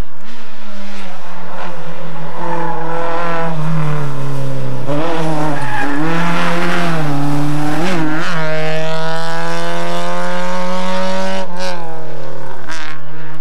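A small hatchback rally car's engine revving hard through a hairpin, its pitch dipping as it lifts and changes gear, then one long rising rev as it accelerates away, dropping once more near the end. Some tyre squeal in the corner.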